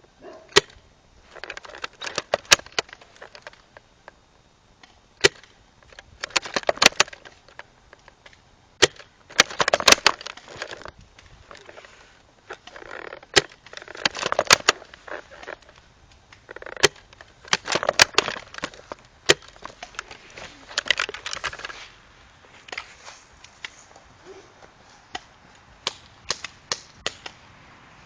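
Airsoft guns firing, sharp single cracks at irregular intervals, some in quick clusters. Between them come stretches of rustling noise.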